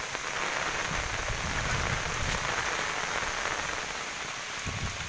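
Steady rain falling on paved ground, an even hiss without a break.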